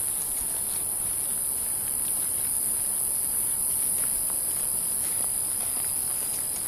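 Chorus of night insects singing in the grass: a steady, unbroken high-pitched buzz, with a thinner steady whine underneath.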